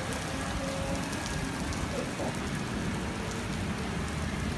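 Steady heavy rain from a thunderstorm falling on pavement, with small drop ticks scattered through it.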